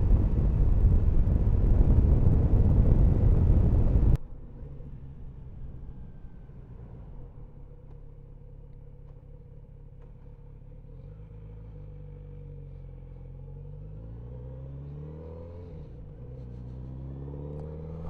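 Wind rushing past at road speed for about four seconds, then cutting off suddenly. What remains is the Kawasaki Z900RS's 948 cc inline-four engine running at low revs, its pitch rising in several climbs over the last few seconds as the bike pulls away through the gears.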